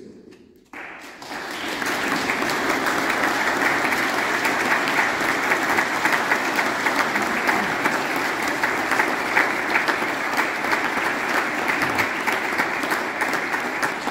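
Congregation applauding in a church: clapping starts about a second in, quickly builds, and holds as steady, dense applause.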